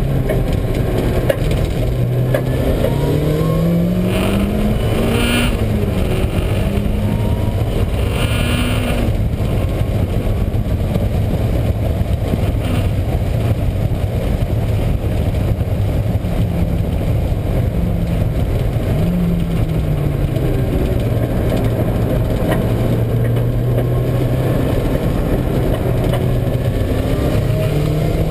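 Mazda Miata on track: the engine rises and falls in pitch through acceleration and lift-off over a heavy, steady road noise. A failing wheel bearing is making noise, which the owner says shows mainly under engine braking.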